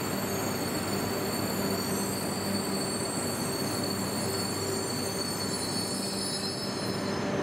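E926 East i Shinkansen inspection train departing, its cars rolling past at low speed with a steady running noise and thin steady high tones over it. Near the end the highest tones stop.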